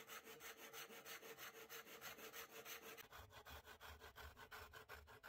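Handsaw cutting through a wooden dowel with quick, even strokes, about six a second, faint.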